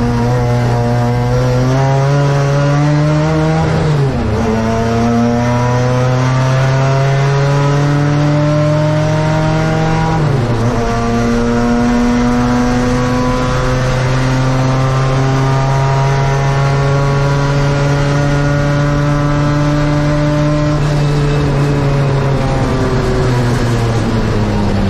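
Saloon race car's engine at full throttle, heard from inside the cabin: the revs climb and drop sharply at two upshifts, about four and ten seconds in, then hold high and rise slowly before falling away from about twenty-one seconds as the car slows.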